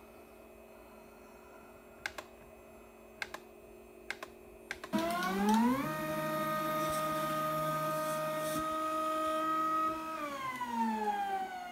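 Gear-drive stepper motors of a 3D-printed six-axis robot arm whining as the arm drives back to its home position: about five seconds in the whine rises in pitch as the motors speed up, holds steady, then falls as they slow near the end. Before the motors start there are a few sharp clicks over a faint steady hum.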